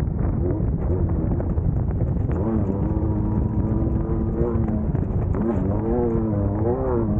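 Class 1600 off-road race buggy's engine running under load, its pitch rising and falling repeatedly as the throttle comes on and off over rough ground, under a constant low rumble.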